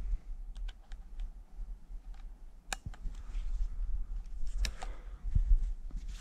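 Footsteps through brush, with scattered sharp clicks and snaps of twigs or stones, a loud one about three seconds in and a cluster near the end, over a low rumble on the microphone.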